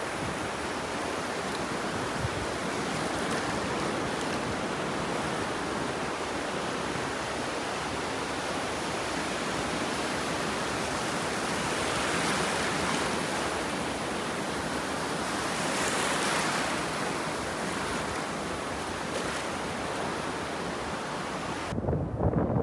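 Surf washing onto a beach with wind buffeting the microphone: a steady roar of noise that swells twice, about halfway through and again about two-thirds in. Just before the end it cuts off abruptly.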